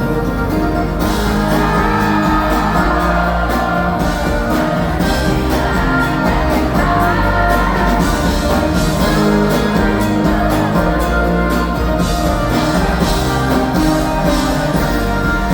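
Live band music at a loud concert, played through the PA system with drums, bass and guitar, and a sung or synth melody over it.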